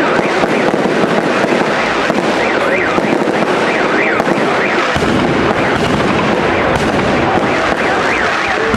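Fireworks salute going off in a dense, continuous crackle of pops and bangs, with rising and falling whistles repeating over it. A deeper rumble joins about halfway through.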